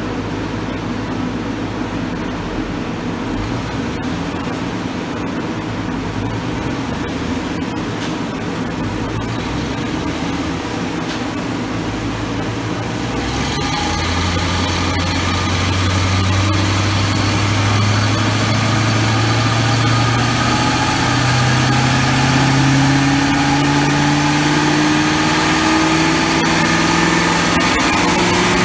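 An engine runs steadily. About halfway through it gets a little louder and its pitch begins a slow, steady climb.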